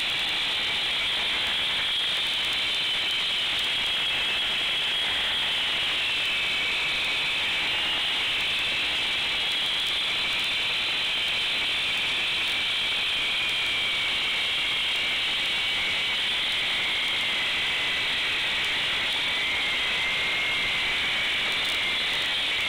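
Concrete saw cutting through a concrete slab, with a steady high motor whine. The pitch sags a few times as the blade bogs down under load, then recovers.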